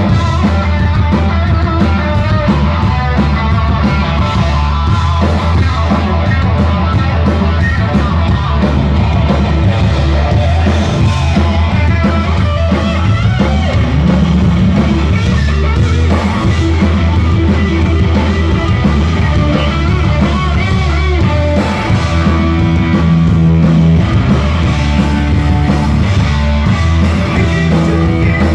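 Rock band playing live without vocals: electric guitar over bass and a drum kit, loud and steady, with a brief dip in level about twenty-two seconds in.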